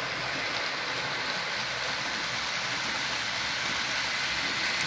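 Model freight train running on a layout track: the wheels of a long string of model freight wagons rolling over the rails, a steady, even rushing noise.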